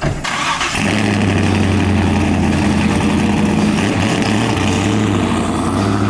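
An engine running steadily after starting abruptly, with a low, even drone.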